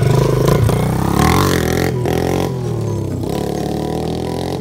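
Pit bike engine revving as the bike rides away, the pitch rising and falling about a second in, then the sound growing steadily fainter.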